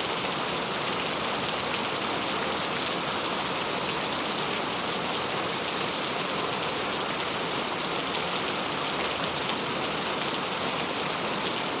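Steady rainfall: an even hiss of rain with many small drops pattering on surfaces.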